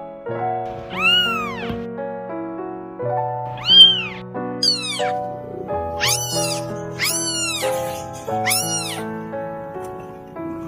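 Cat meowing about six times, each meow rising then falling in pitch, with the fourth one sliding down, over background music of steady held notes.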